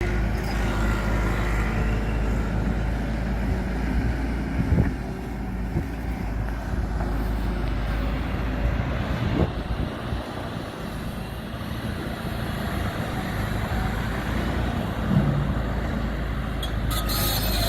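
A heavy engine running steadily with a low rumble, with a few knocks scattered through it.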